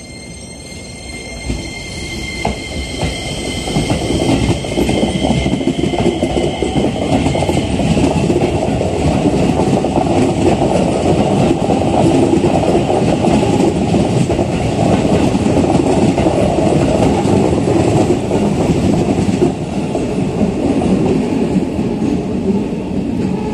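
Hokuso Railway 7500 series electric train departing and running past on the Keisei Main Line: a steady rumble and clatter of wheels on rail. It builds over the first few seconds and eases a little near the end.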